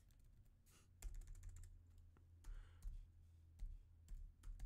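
Faint computer keyboard typing: a quick run of key presses about a second in, then scattered single keystrokes.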